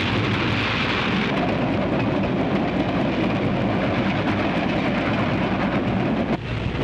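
Steam locomotive running at speed at night: a loud, steady rushing noise that dips briefly near the end.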